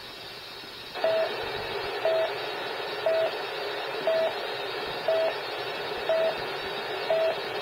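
Police dispatch radio channel: about a second in the hiss opens up louder, and a short mid-pitched beep repeats over it about once a second.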